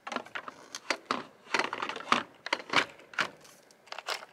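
Irregular series of short clicks and taps from hands working a frame-mounted e-bike battery pack and its lock key: hard plastic and metal knocking in the mount.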